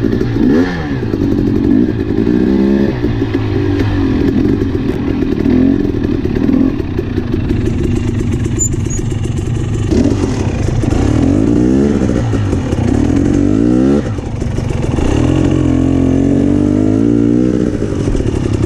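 Dirt bike engine running at low speed over rock, the revs rising and falling again and again as the throttle is opened and closed in short bursts.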